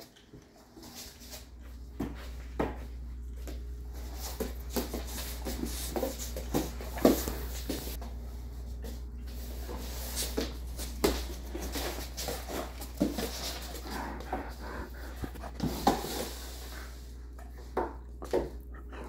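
Two Great Danes playing tug of war: a scatter of sharp clicks and thumps from their paws and claws on laminate flooring, mixed with short sounds from the dogs.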